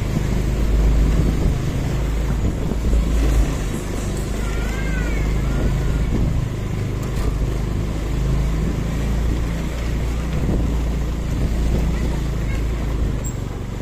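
Motorcycle engine running at low speed, a steady low rumble through the whole stretch, with a short faint rising-and-falling call about four and a half seconds in.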